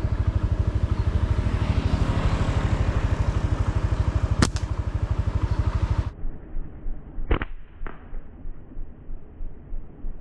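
Motorcycle engine running steadily under way, with one sharp click about four and a half seconds in. The sound then cuts off abruptly and two sharp snaps about half a second apart follow as a slingshot is fired into a tree.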